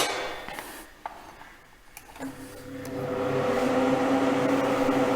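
A click, then about two seconds later a 150 mm inline duct fan starts and comes up to a steady run within a second. The cheap fan's motor hums slightly under the noise of air rushing and swirling through a 125 mm duct.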